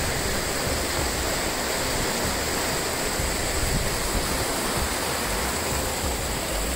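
Fast mountain river rushing over stones and boulders: a steady, even rush of water, with some low wind rumble on the microphone.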